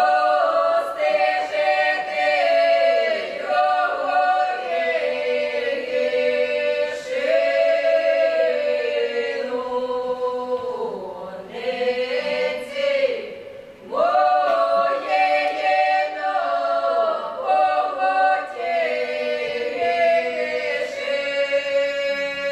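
Mixed women's and men's voices singing unaccompanied in Ukrainian village polyphony, a wedding song, in long held phrases with brief pauses between them.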